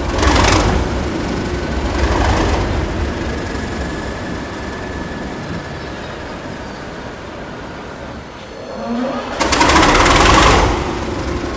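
Diesel rail engine running, with loud surges about a second long: one near the start, one about two seconds in, and the longest near the end after a brief lull.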